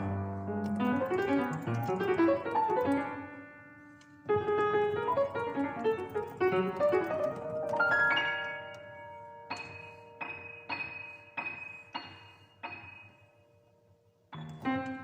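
Solo piano playing fast, dense flurries of notes. About halfway through it changes to a slower run of separate high notes struck roughly twice a second over a held note, then dies away near the end.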